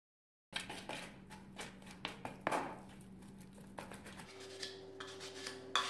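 Tile grout paste being stirred in a plastic bowl with a small tool: soft, irregular scraping and clicking of the tool against the bowl, beginning about half a second in, over a faint steady hum.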